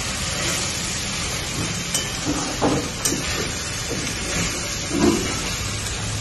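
A steady hiss of background noise, with a few faint, brief sounds about two and a half and five seconds in.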